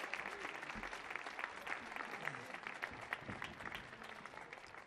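Audience applauding after a song, the clapping gradually dying down toward the end.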